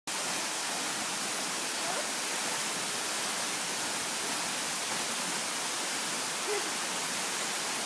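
Waterfall close by: a steady, even rush of falling and splashing water.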